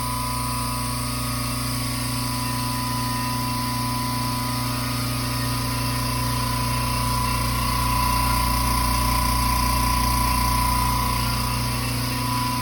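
EMAX Hulk 2 HP 10-gallon silent air compressor running steadily, pumping up its tank from empty with its intake air filters and silencer pipes fitted. A steady hum with a thin high whine, a little louder about two-thirds of the way through.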